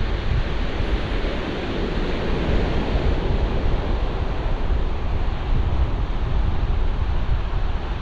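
Sea surf washing onto a shingle beach, mixed with wind buffeting the microphone: a steady rushing noise with a strong low rumble underneath.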